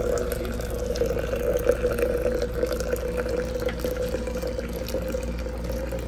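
Water poured in a thin, steady stream from a gooseneck kettle into a glass French press onto coffee grounds, a continuous trickling fill with a held ringing tone from the jug.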